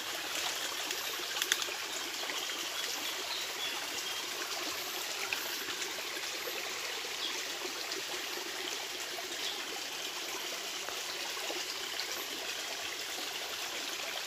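Small, shallow forest stream trickling steadily over a little spill into a pool, with a light click or two about a second and a half in.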